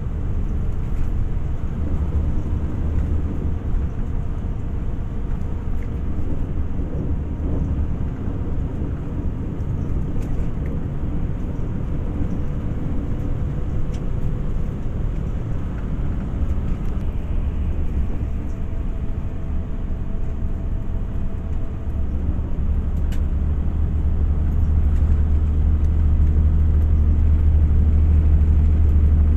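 A steady low rumble that grows louder over the last few seconds.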